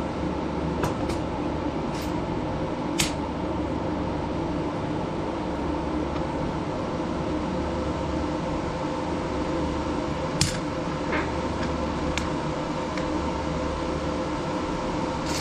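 Steady mechanical hum, like a fan or motor running, with a few short clicks and knocks over it, the sharpest about three seconds in and about ten seconds in.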